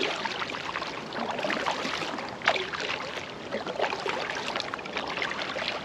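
Water splashing and trickling around a kayak as it is paddled, with irregular small splashes from the strokes.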